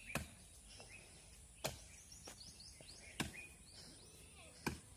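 Quiet outdoor ambience with four short knocks, evenly spaced about a second and a half apart, and a few faint high bird chirps in the middle.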